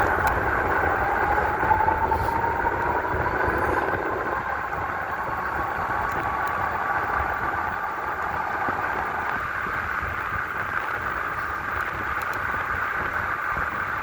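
Electric bike motor whining while riding a rough dirt trail. Its pitch rises slowly over the first several seconds as the bike picks up speed, then holds steady over a rushing noise and a low rumble that eases after about four seconds.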